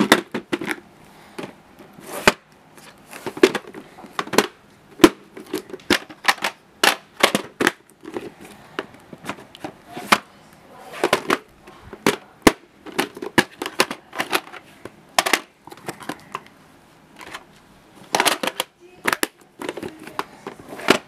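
Clear plastic VHS clamshell cases being handled, opened and snapped shut: irregular sharp plastic clicks and knocks throughout.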